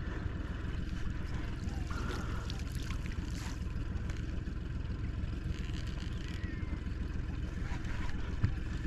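Steady low rumble in a small aluminium fishing boat, with a single knock about eight seconds in.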